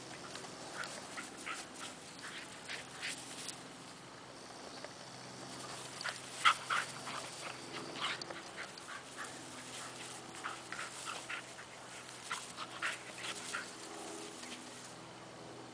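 Two young dogs play-fighting, making short, scattered play vocalisations, the loudest about six and a half seconds in, over a faint steady hum.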